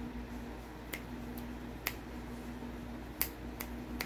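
Fingers snapping beside the ear, about six sharp snaps at uneven intervals, to test what a sound amplifier worn in that ear picks up.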